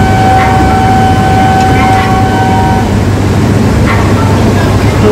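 Platform ambience beside a standing Shinkansen train: a steady low hum with faint voices, and a steady electronic tone that stops about three seconds in.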